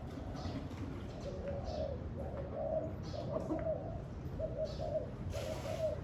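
Spotted dove cooing, a run of repeated low coo phrases starting about a second in, over the low rumble of wind on the microphone.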